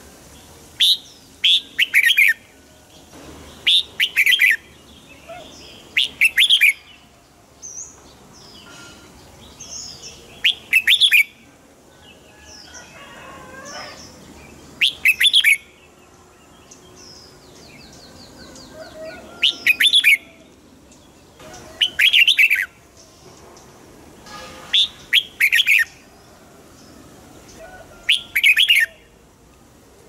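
Red-whiskered bulbul singing: about ten short, loud phrases of a few quick notes each, coming every two to four seconds, with fainter chirps between them.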